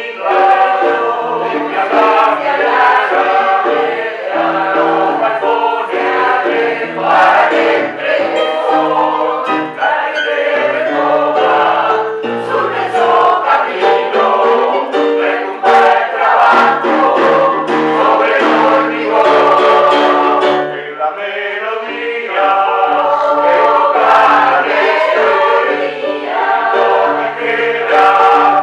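Mixed choir of men and women singing together in sustained chords, with a short break between phrases about two-thirds of the way through.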